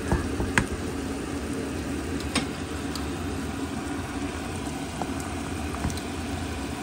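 A steady low mechanical hum runs under a pan of eggplant, onions and garlic cooking in oyster sauce. A spatula clicks against the pan three times in the first two and a half seconds.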